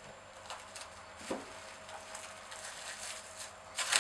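Cling film crinkling and a silicone dome mould being flexed and peeled as mousse domes are released onto a plastic tray. There is a soft knock just over a second in and a louder crackle near the end.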